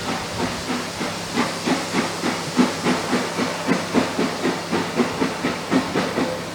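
Steam locomotive working, its exhaust chuffing in an even beat of about three to four a second over a steady hiss of steam.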